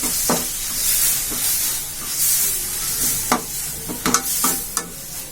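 Onion-tomato masala with curry leaves sizzling in oil in a kadai while a spatula stirs it, with several sharp scrapes against the pan about three to five seconds in.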